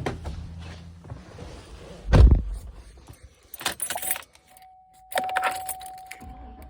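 Keys jangle and a loud thump comes about two seconds in, then a steady single-tone warning chime starts. Near the end the Chevy 6.0 V8 is cranked and starts, settling into a steady low running sound, its misfire now apparently cured by a new ignition coil and plug wires.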